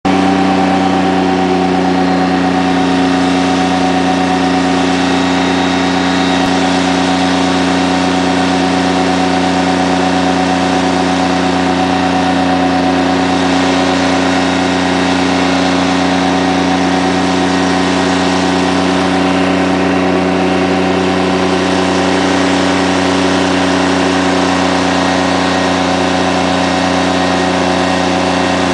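M113 armoured personnel carrier under way, its engine and running gear making a loud, steady drone with an unchanging hum, heard from on top of the vehicle at the open hatch.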